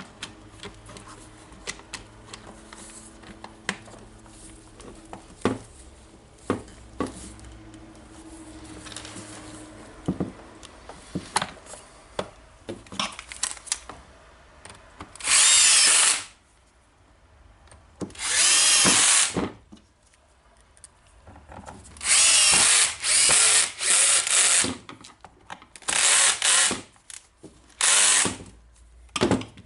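Cordless screwdriver running in short bursts of a second or so, about eight times in the second half, driving the screws that close the drill's plastic housing. Before that, small clicks and knocks of plastic parts and screws being handled.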